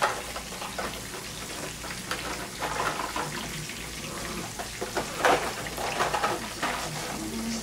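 Cornmeal-coated flounder frying in hot oil, a steady sizzle. Several short rattles and rustles over it, the loudest about five seconds in, as raisins are shaken from a small cardboard box.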